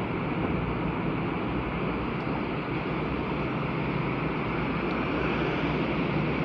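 Steady rush of muddy rainwater running along a street gutter and draining into a culvert opening under the curb, with a low steady hum beneath.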